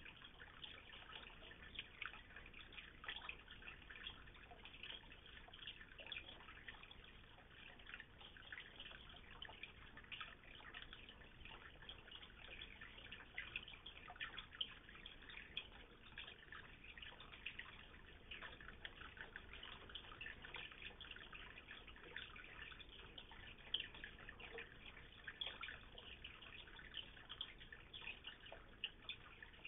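Faint, continuous splashing and dripping of water falling into a small koi pond: a dense patter of tiny drops.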